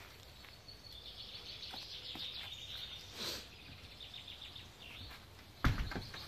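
High-pitched chirping, rapid and continuous, over background noise, with one sudden thump about five and a half seconds in.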